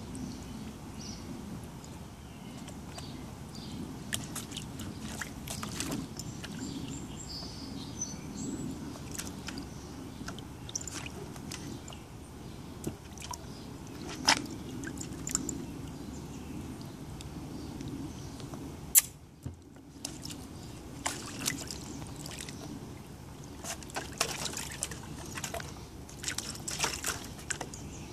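Small dog pawing and splashing about in shallow water in a plastic kiddie pool: light sloshing with scattered small splashes and drips, busier near the end. One sharp click stands out about two-thirds of the way through.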